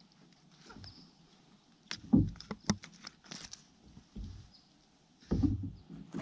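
Handling sounds of unhooking a caught bass and its frog lure in a kayak: scattered clicks, taps and knocks, loudest about two seconds in, with a duller knock near the end.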